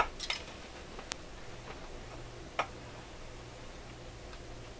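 A few light clicks and taps as a power cord and plug are handled on a wooden workbench, over a faint steady low hum that sets in about a second and a half in.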